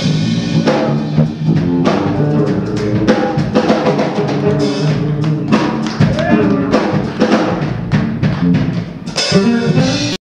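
Fretless electric bass soloing live over a drum kit groove, funk style. The sound cuts off suddenly near the end.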